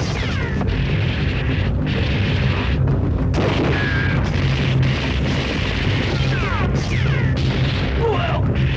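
Action-film gunfight soundtrack: dense, unbroken gunshot and explosion effects over a music score, with a few short falling whines.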